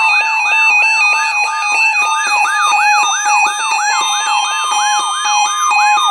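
Electronic siren-type alert alarm sounding: fast rising-and-falling yelping sweeps, about three a second, over steady high tones, with a second steady tone joining about a second in. It is the alarm of a weather alert broadcast going off for a severe thunderstorm watch.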